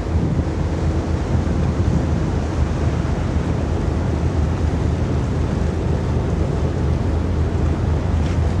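Wind buffeting the microphone over a steady low rumble and faint hum from a large car ferry's engines as the ship comes into port.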